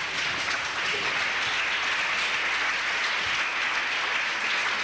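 Studio audience applauding, a dense, steady round of clapping from a room full of people.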